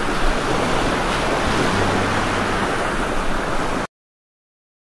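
Heavy rain pouring steadily, a dense even hiss that cuts off abruptly about four seconds in.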